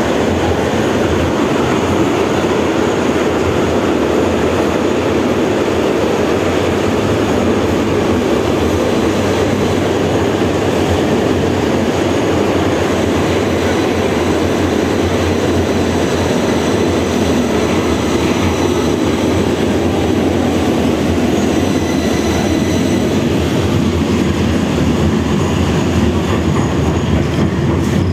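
Cabin noise of a 71-154 (LVS-2009) articulated tram running along the track: a steady rumble of wheels on rail heard from inside the car. Faint high whining tones come in about two-thirds of the way through.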